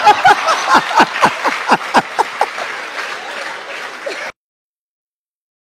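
Audience laughing and clapping after a joke's punchline, a dense crowd noise with repeated bursts of laughter. It cuts off abruptly about four seconds in.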